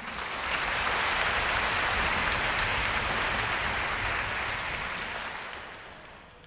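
Audience applauding in a concert hall, swelling in the first second, holding steady, then dying away over the last second or two.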